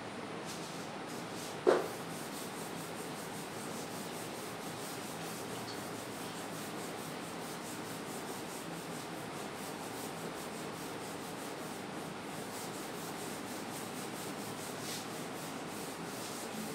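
Whiteboard eraser rubbing back and forth across a whiteboard, wiping off marker writing in a steady, even scrubbing. A single short knock comes about two seconds in.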